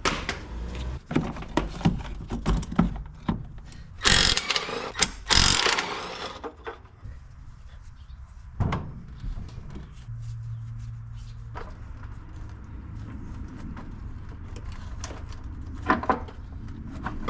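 Hand tools clicking, knocking and clattering against metal during engine work, with a loud hissing rush about four seconds in that lasts about two seconds.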